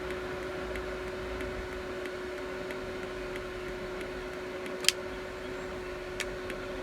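Small homemade 12-volt fan running with a steady hum, loading the battery box. Faint, evenly spaced ticks come from the box's blinker warning, about one and a half a second, which signal that high-current mode is on; one sharper click comes near five seconds in.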